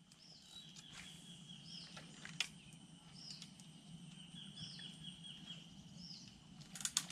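A bird repeating a short rising-and-falling high call about every one and a half seconds, over a steady high insect drone, with a few sharp clicks, the loudest about two and a half seconds in.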